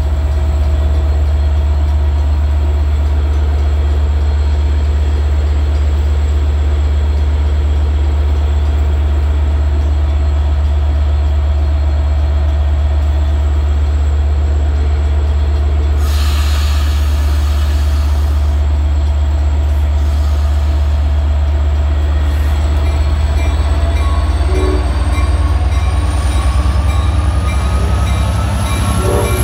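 A diesel-electric locomotive stands at the platform with its engine running in a loud, steady low hum. About 16 seconds in comes a brief hiss. From about 22 seconds a whine rises steadily in pitch and the engine note grows unsteady as the train starts to pull away.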